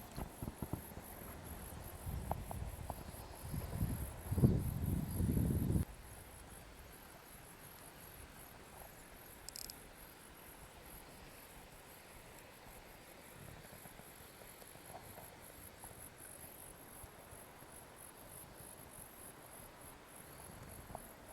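Insects chirring in a steady, high, finely pulsing trill. Low rumbling on the microphone, the loudest sound, runs for about the first six seconds and then stops.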